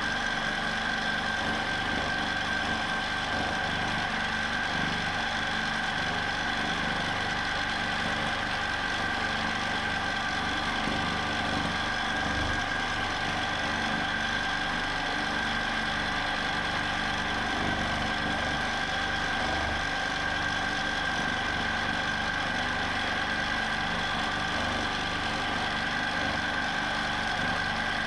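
Q'nique 19 longarm quilting machine running steadily in constant-speed mode, its motor giving an unbroken mechanical hum with a high steady tone.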